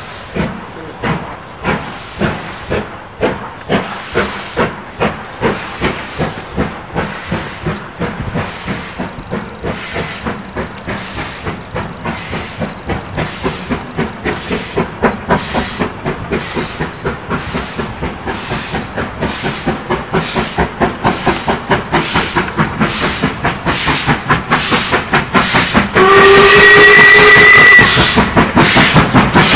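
LMS Stanier 8F 2-8-0 steam locomotive working hard on approach, its exhaust beats growing louder and quicker. Near the end it sounds its whistle for about two seconds.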